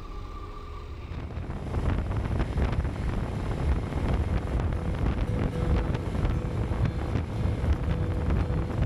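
Wind buffeting the microphone of a camera on a moving motorcycle, a loud, uneven rush that comes in about a second in as music fades out.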